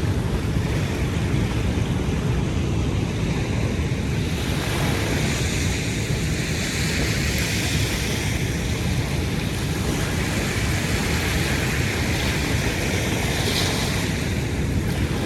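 Ocean waves washing ashore in a steady surf, swelling a few times, with wind rumbling on the microphone.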